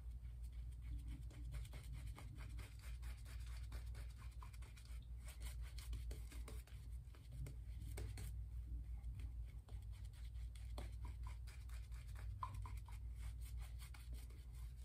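Horsehair shaving brush working lather over the face in soft, scratchy brushing strokes, over a low steady hum.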